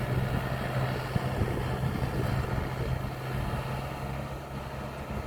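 Maxxi Bimo 102 rice combine harvester's engine running steadily, slowly growing fainter.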